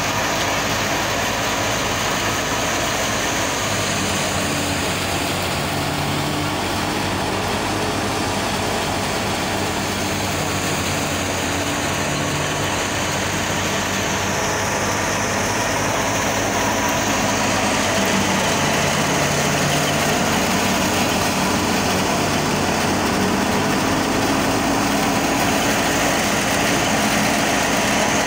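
A tractor-driven Millat wheat thresher running steadily under load as wheat straw is fed in, mixed with the diesel engine of the NH Ghazi 480 tractor that drives it. It is a continuous loud machine noise that grows slightly louder about two-thirds of the way through.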